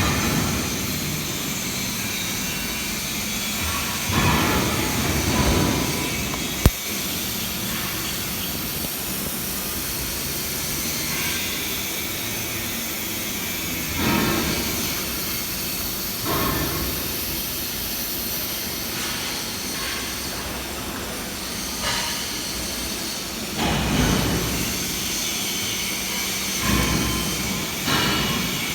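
Welding on a thin 1.2 mm tube tank: a steady loud hiss, swelling louder several times and with one sharp click about seven seconds in.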